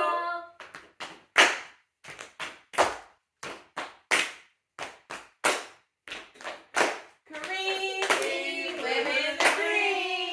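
A quick, irregular run of about twenty short hand claps. About seven seconds in, a voice starts singing.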